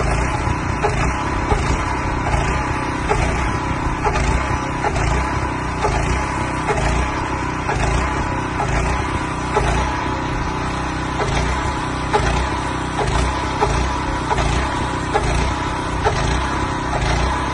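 Small gas engine of an airless paint sprayer running steadily under load, with a regular pulse from its pump.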